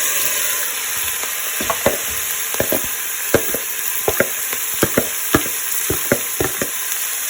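Vegetables sizzling steadily in hot oil in a pan, with a utensil knocking and scraping against the pan in irregular clicks as they are stirred.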